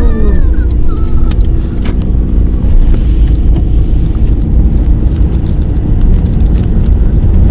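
A car running, heard from inside the cabin: a steady low rumble, with scattered light ticks.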